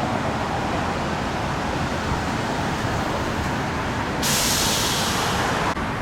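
Steady road traffic noise, then a loud sharp hiss starting about four seconds in, lasting about a second and a half and cutting off suddenly.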